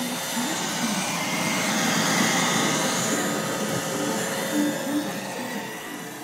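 Roomba robot vacuum running on a shaggy rug: a steady motor-and-brush whirr that fades near the end.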